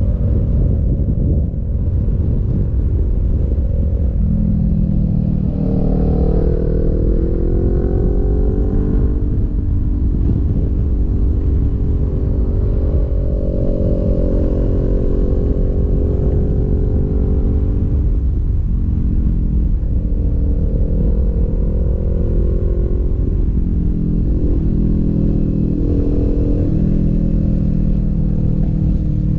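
Sport motorcycle engine running at road speed, its pitch rising and falling several times as the throttle opens and closes, over a heavy low rumble of wind and road noise.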